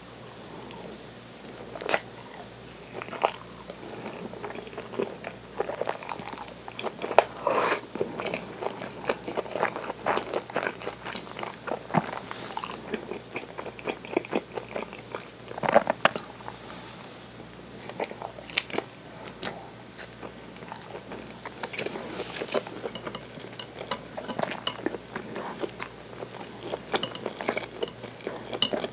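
Close-up eating sounds: biting and chewing okonomiyaki and a rice ball (onigiri), with many irregular short clicks and wet mouth sounds.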